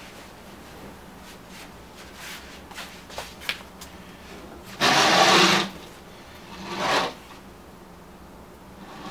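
Curtains drawn open along their rail: a few small clicks, then a long sliding sound about halfway through and a shorter one a second later.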